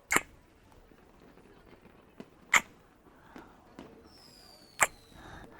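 Three close-up kisses into the microphone: sharp lip smacks about two seconds apart. A faint falling whistle sounds near the end.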